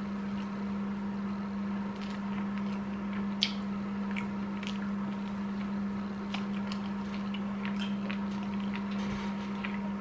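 A man chewing a mouthful of sticky, microwave-melted marshmallow: scattered wet mouth clicks and smacks, over a steady low hum.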